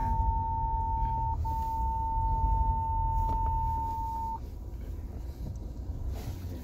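Ford Ranger Raptor's parking-sensor warning as one steady high beep tone, with a brief break about a second and a half in, cutting off about four seconds in. Under it runs the low rumble of the truck's 2.0 bi-turbo diesel engine heard inside the cabin.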